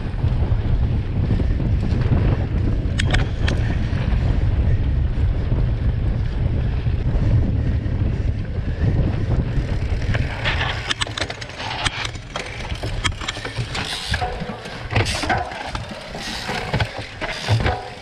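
Wind buffeting the microphone of a bike-mounted camera as a mountain bike rides fast over a dirt track, a steady low rumble. About ten seconds in the rumble eases and quick clicks and rattles of the bike and its tyres on rough dirt and stones take over.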